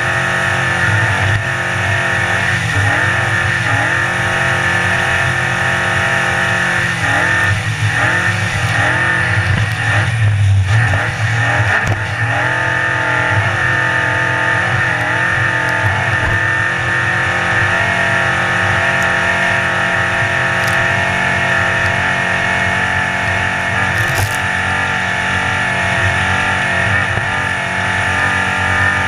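Racing powerboat's engine running hard at speed, heard from on board. Its pitch wavers up and down in places, most in the first half.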